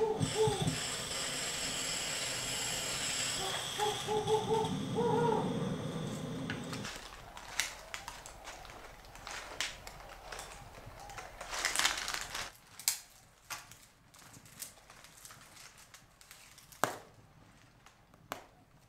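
Short pitched notes over a steady hiss at first; then, after a sudden change about seven seconds in, a wood fire in a brick fireplace crackling, with scattered sharp pops.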